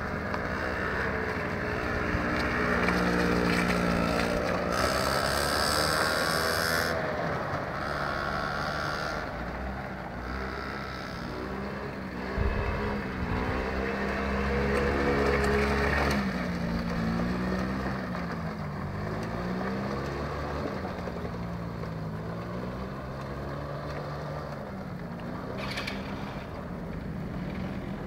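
Small quad bike engines running around a track, their pitch rising and falling as the throttle is opened and eased off.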